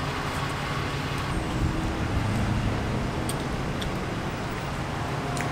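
Steady low rumble of nearby car traffic and running car engines, with a few faint clicks about three and a half, four and five and a half seconds in.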